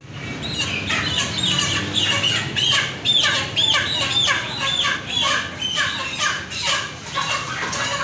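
A flock of white broiler chickens squawking: a dense run of short, high calls that rise and fall, one after another, throughout.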